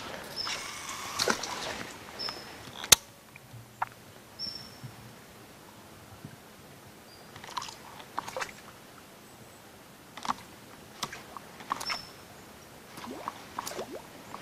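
Scattered small splashes and clicks of a topwater bass plug being twitched across a still pond surface, with one sharp click about three seconds in.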